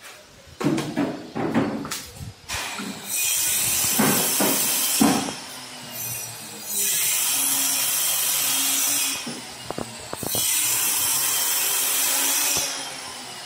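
A power tool run three times for about two and a half seconds each, making a steady, high hiss. Short knocks come between the runs.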